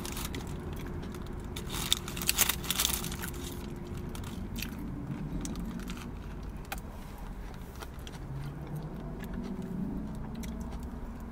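Eating sounds inside a car: paper food wrappers crinkling and chewing, with a cluster of sharper crackles about two to three seconds in, over a steady low hum.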